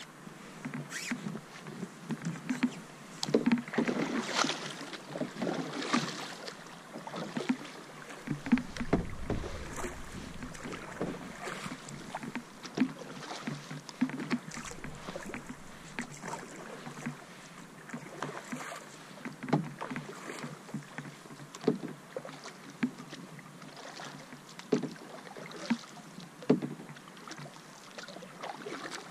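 Canoe paddle strokes through calm water: irregular dips and splashes of the blade, with light knocks and drips between strokes.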